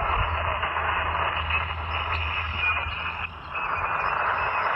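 Shortwave transceiver's speaker hissing with 20-metre SSB band noise while the receiver sits on an open frequency, the sound cut off above about 3 kHz. A low hum runs under it for the first three seconds, and the hiss drops out briefly just after three seconds in.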